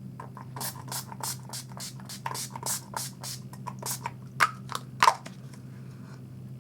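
Urban Decay All Nighter setting spray pumped again and again at the face: a quick run of short spritzes, about three a second, the two loudest near the end, stopping about five seconds in.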